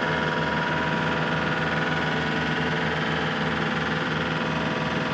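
The bridge-launcher truck's engine and hydraulic system running steadily during the Rapidly Emplaced Bridge deployment: a low, evenly pulsing hum under a constant whine.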